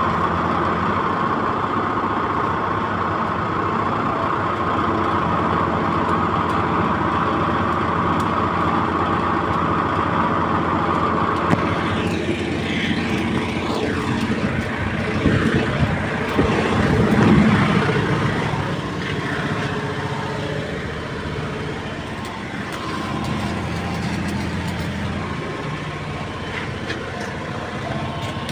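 An engine running steadily, with a louder rough stretch a little past the middle.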